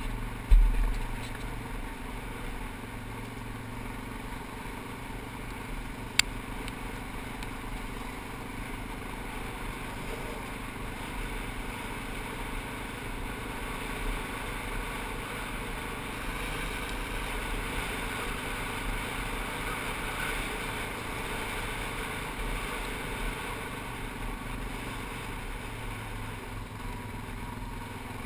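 ATV engine running steadily at trail speed, heard from the machine's own seat. There is a heavy low thump just after the start and a sharp click about six seconds in.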